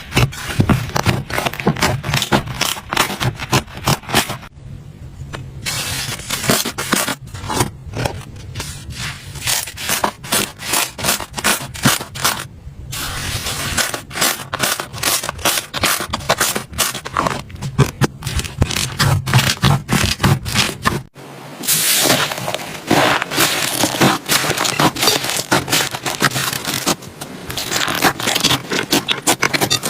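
Slime being squeezed and worked by hand, giving dense, rapid crackling clicks and pops with a few brief pauses.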